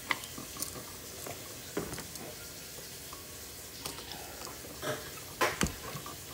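Scattered light clicks and taps as wires are bent onto a wall receptacle's terminals and a screwdriver turns the terminal screw; the sharpest click comes about five and a half seconds in.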